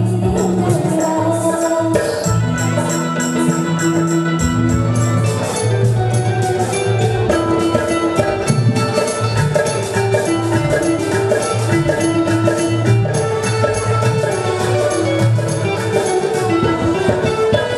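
Live band playing an instrumental interlude between sung lines: a keyboard melody over hand-played dholak drumming.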